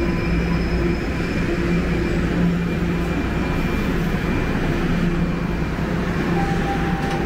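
Toronto Rocket subway train standing at the platform with its doors still closed, giving a steady rumble and hum with a few held tones.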